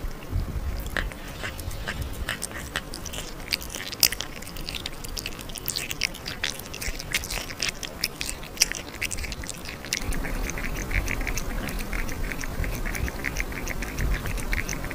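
A cat chewing meat with irregular wet clicks and smacks. From about ten seconds in, it laps liquid from a glass in a quick, even run of laps.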